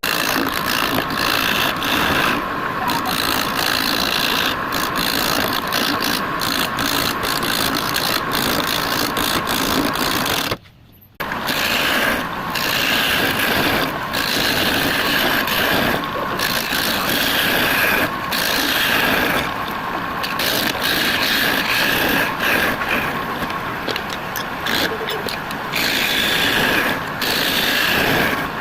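Wood lathe running while a tool cuts into the spinning wood, a steady rasping scrape with a faint machine whine. The sound breaks off briefly about eleven seconds in, then carries on.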